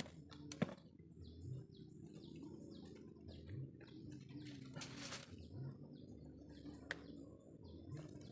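Faint bird chirps, short high notes repeating over a low background hum, with a couple of sharp clicks.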